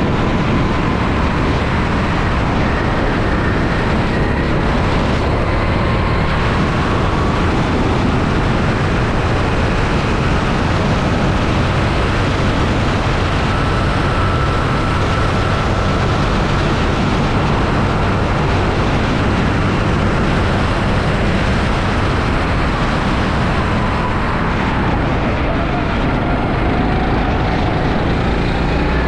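Rental go-kart engine running on track, its pitch rising and falling slowly with throttle and speed, under a loud, steady rush of wind and road noise at the onboard camera.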